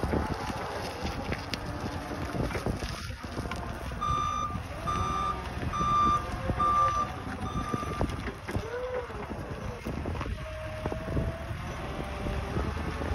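Hyster H4.00XM LPG forklift running as it manoeuvres, its reversing alarm beeping five times at a steady pace about four seconds in, roughly one beep every three-quarters of a second.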